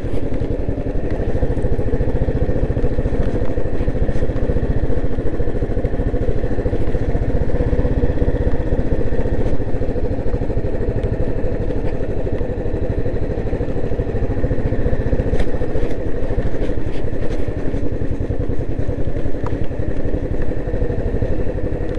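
A motorcycle engine running steadily, low and even, with a fast regular firing pulse.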